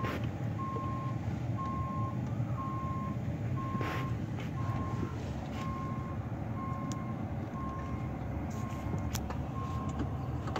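Pickup truck's in-cab reversing warning beeping, one steady half-second beep about every second, over the low running of the engine and the truck rolling.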